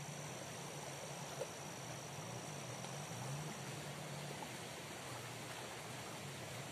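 Steady rush of flowing river water, with a low hum that wavers underneath and a thin steady high tone.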